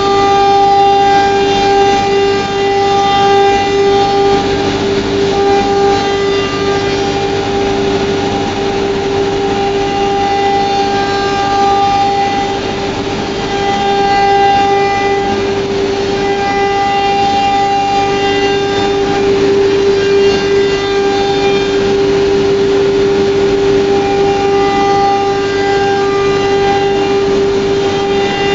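FLDM F3 CNC router's spindle running with a steady high whine as the machine cuts a wood-based board, with higher tones that come and go every second or two.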